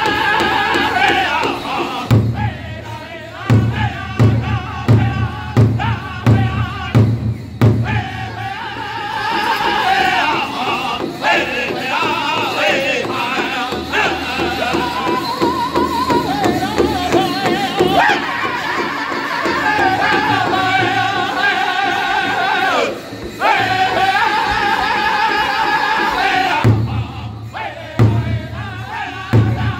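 Powwow drum group singing a Men's Chicken dance song in high-pitched unison, beating a large powwow drum with padded sticks in a steady pulse. The drum strokes are heavier for a few seconds early on and again near the end.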